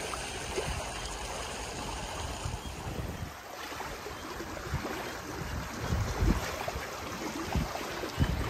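Water rushing and splashing past the hulls of a Hobie 16 catamaran under sail through choppy water, a steady wash with a few low thumps about six seconds in and near the end.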